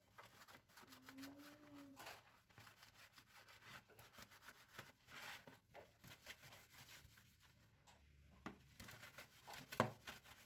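Faint rustling and light clicks of objects being handled during kitchen cleaning, with one sharper click near the end.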